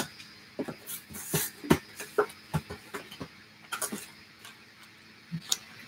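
A hand rummaging through a clear plastic tub of foil blind-bag packets: a string of irregular knocks, clicks and crinkles.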